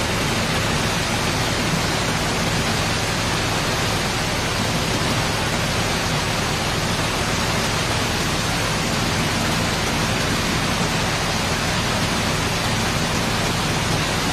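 Steady hiss of heavy rain and rushing floodwater, even throughout, with a faint low hum underneath.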